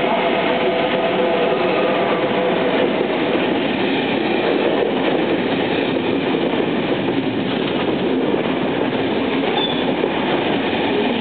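KTT intercity through train, double-deck coaches behind a Lok 2000 electric locomotive, running through the station at speed without stopping: a steady, loud rush of wheels on rail as the coaches pass.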